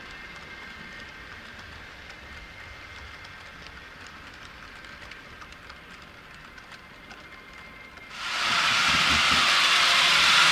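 H0-scale model freight train of hopper wagons rolling on the track: a faint steady running sound with small wheel clicks. About eight seconds in it turns suddenly much louder, into a hissing rumble as the train passes close by.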